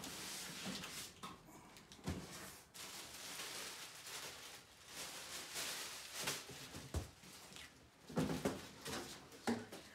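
Packaging rustling and scraping in waves, with a few sharp knocks and a cluster of heavier thumps near the end, as a boxed alloy wheel is unwrapped and handled.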